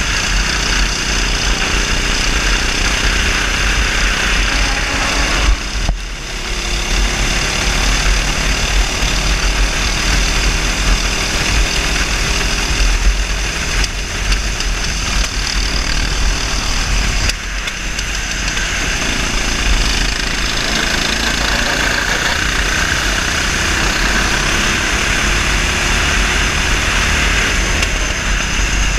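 390cc single-cylinder kart engine running hard at racing speed, heard from the driver's seat, with wind rumbling on the microphone. The sound dips briefly twice, about six seconds in and again a little past halfway.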